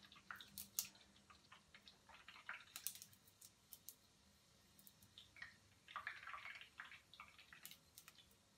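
Faint, irregular crackling and popping of bacon grease around a hot rounding-hammer head held in tongs, as the grease is baked on for a finish.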